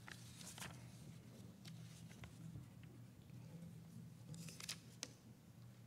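Faint rustling of paper sheets being handled and shuffled at the lectern: a few short crinkles near the start and again about four and a half seconds in, over a steady low room hum.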